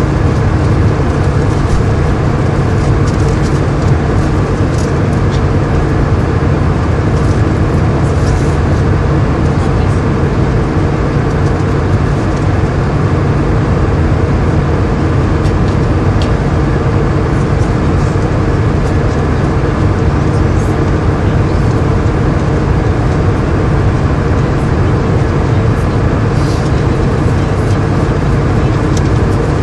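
Airliner cabin noise: the engines and airflow make a steady, unbroken drone with a low hum under it.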